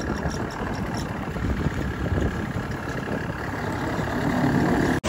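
Motorcycle engine running steadily while riding, with tyre rumble from an unpaved, rutted road. The sound cuts out abruptly for an instant near the end.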